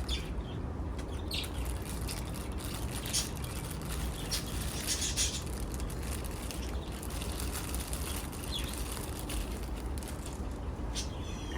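Rustling and handling noises as an orchid is unwrapped from its packaging, over a steady low hum, with a few faint brief chirps.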